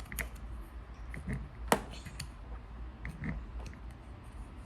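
Light handling of a plastic Play-Doh toy set: scattered soft clicks and taps, with one sharper click a little under two seconds in.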